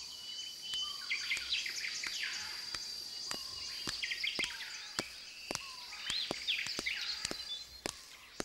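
Forest ambience: birds chirp repeatedly over a steady, high insect drone. From about three seconds in, sharp clicks come about twice a second.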